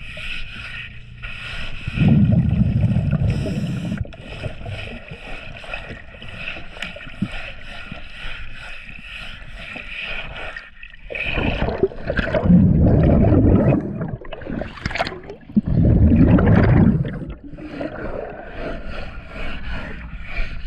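Scuba diver breathing through a regulator underwater: three loud bursts of exhaled bubbles a few seconds apart, the longest about two seconds, with a fainter steady hiss between them.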